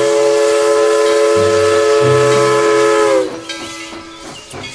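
Steam locomotive whistle (Tweetsie Railroad No. 12) sounding one long, loud chord of several tones. It sags in pitch and dies away about three seconds in, leaving escaping steam hissing.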